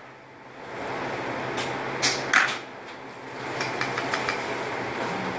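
Electric hair clipper buzzing, switched on about half a second in, with a short dip in the middle and a few light clicks over it.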